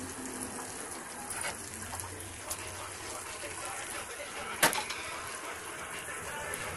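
Chicken frying in oil in a wide pan, a steady sizzle, with a single sharp click about four and a half seconds in.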